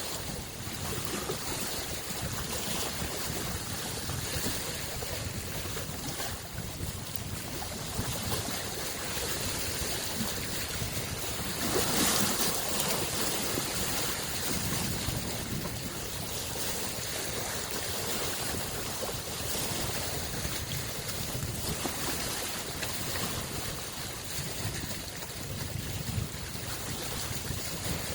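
Small lake waves lapping and washing on the shore in a steady wash, swelling to a louder wash about twelve seconds in, with some wind.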